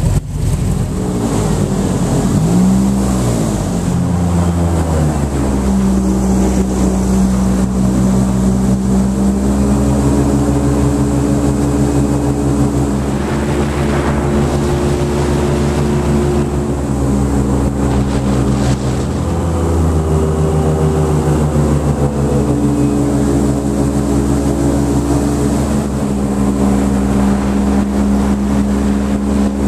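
Airboat engine and rear propeller running. The pitch rises from about two to six seconds in as it revs up, then holds steady, easing off briefly past the halfway point before picking up again.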